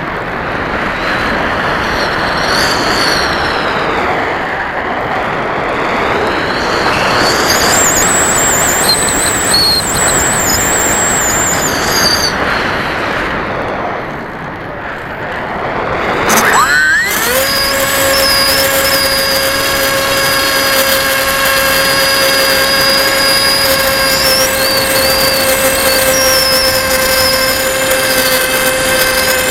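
Onboard sound of a HobbyKing Bixler 1.1 foam RC plane in flight. For the first half, air rushes past the airframe with only faint high tones. About halfway through, its 2620 1900kv brushless outrunner and pusher propeller spin up with a quick rising whine, then run at a steady, high-pitched whine.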